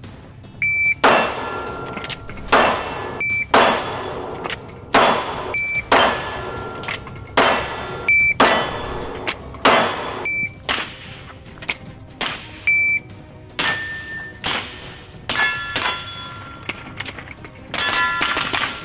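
Shot-timer beeps, about six in all, each followed by 9mm Glock 19 pistol shots and steel targets ringing. Each run goes: a shot, a break of about a second for a speed reload, then more shots. A quicker string of shots comes near the end.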